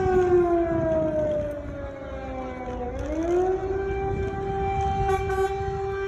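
Air-raid siren sounding an alert. Its steady tone sags slowly in pitch over about three seconds, then rises back and holds steady again.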